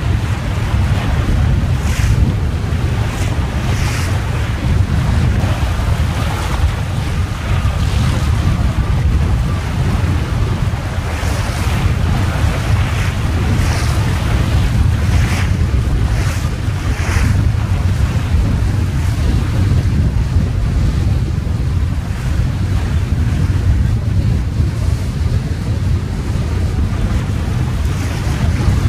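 Wind buffeting the microphone with a heavy rumble, over water rushing past and slapping against the hull of a small trailer-sailer yacht under sail in a choppy sea. There are several sharper splashes, mostly in the first half.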